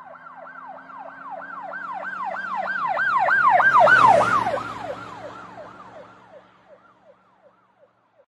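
Emergency vehicle siren passing by: a fast up-and-down wail, about three sweeps a second, that grows louder to a peak about halfway through, drops slightly in pitch, then fades away, with a faint engine rumble beneath.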